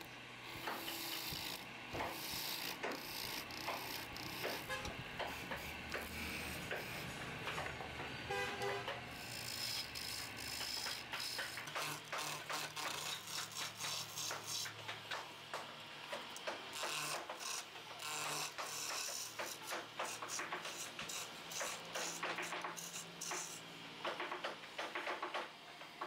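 Wood lathe running while a steel chisel cuts a spinning wooden chair leg: rough scraping of the tool on the wood in quick, irregular strokes over the steady hum of the lathe.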